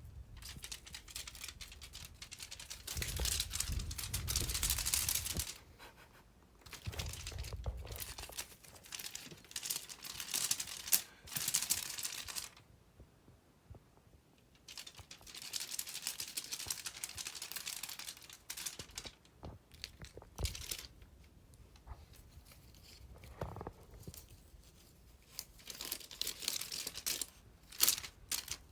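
Paper or plastic crinkling and rustling in irregular bursts, some longer and scratchy like tearing, with short pauses between them.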